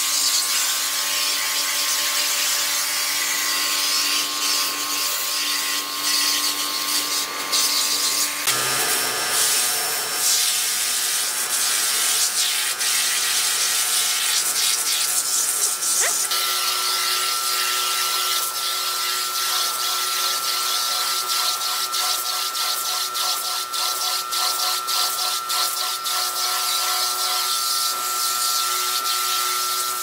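Electric pressure washer motor running steadily with high-pressure water spray hissing, the motor's pitch shifting about a third of the way in and again about halfway through.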